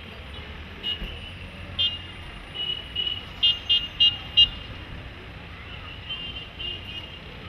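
Street traffic with vehicle horns tooting again and again over a low steady rumble of engines. There is a quick run of four short sharp toots about three and a half seconds in, and longer, softer honks near the middle and toward the end.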